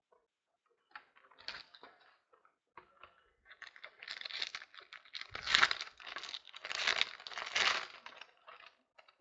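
Trading-card box topper wrapper being torn open and crinkled by hand, in a run of scratchy tears and rustles, the loudest about halfway through and again near the end.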